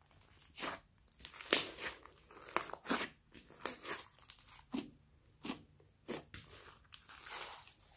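Hands kneading, stretching and pressing a large mass of glossy slime studded with foam beads. The result is a string of short, irregular sticky squelches and pops, about one or two a second.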